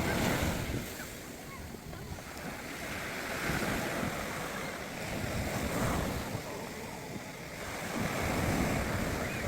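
Rough sea surf breaking on a sandy beach, swelling and easing in waves about three times, with wind buffeting the microphone.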